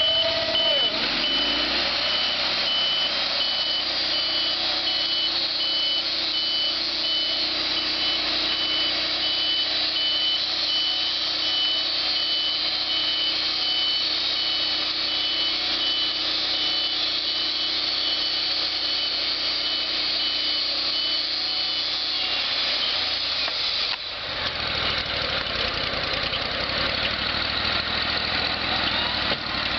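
Portable band sawmill running under load, its engine humming steadily while the band blade saws through a log, with a steady high whine over it. A little over twenty seconds in the whine stops and the engine settles to a different, noisier note.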